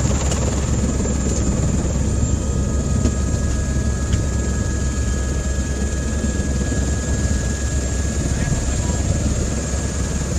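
Helicopter running: a steady, heavy low drone of rotor and engine, with a faint high steady whine joining about two seconds in.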